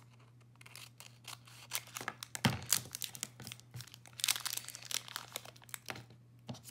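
Clear plastic packaging bag crinkling and crackling as it is handled and torn open by hand, in irregular bursts that are loudest about two and a half seconds in.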